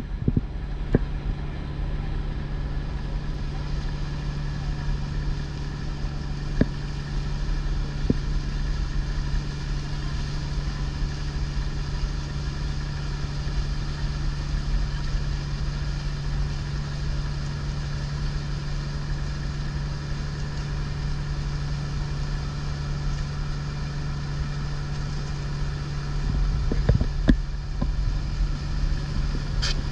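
Outrigger boat's (bangka) engine running steadily under way, a constant low drone, with wind buffeting the microphone, more strongly near the end.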